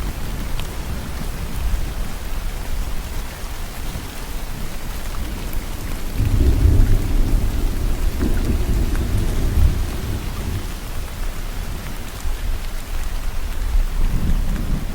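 Steady rainfall with a low rolling rumble of thunder that swells about six seconds in, lasts about four seconds, and starts building again near the end.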